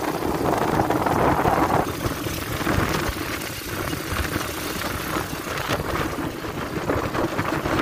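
A 250cc ATV's engine running steadily as the quad is ridden along a bumpy dirt track.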